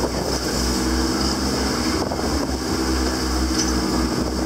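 Boat's engine running with a steady drone, under wind buffeting the microphone and the hiss of rough water.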